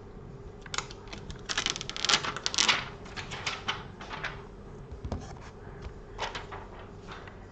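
Plastic packaging crinkling and clicking as it is handled to get the replacement iPad screen out. The loudest part is a dense run of crackles about two seconds in, with scattered clicks after, another short run near the end, and one dull knock.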